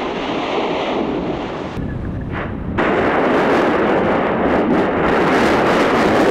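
Yasur volcano erupting: a steady roar of gas and spattering lava from the vent, which surges sharply louder about three seconds in.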